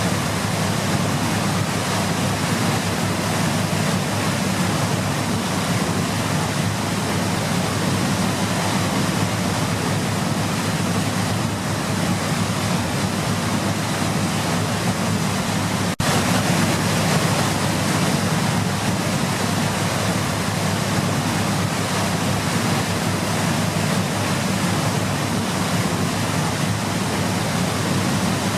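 Waterfall rushing steadily, a dense unbroken roar of falling water, with a brief click about halfway through.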